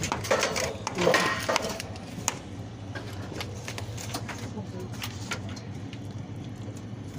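Irregular knocks and clicks of hands and a tool working at a pipe set in cement, densest in the first couple of seconds, over a low steady hum.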